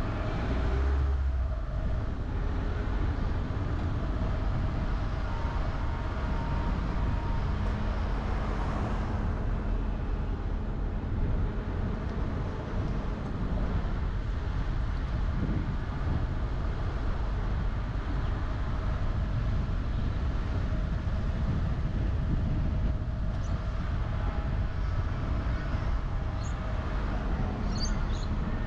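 A car being driven: a steady rumble of road and tyre noise, with a faint hum that comes and goes.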